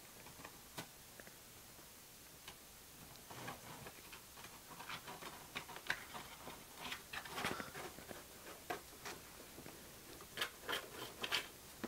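A cat scratching and digging at the inside of a cardboard box: irregular scratches and taps that start a few seconds in and come thicker toward the end.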